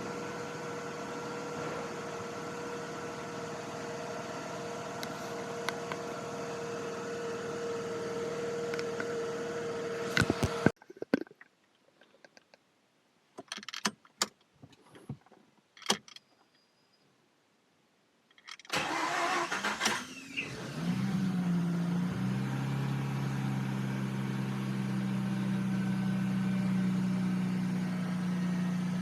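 A steady hum stops abruptly about a third of the way in, followed by a few seconds of near quiet with scattered clicks. Then a Mazda RX-8's rotary engine cranks for a moment, catches, and settles after a second into a steady idle.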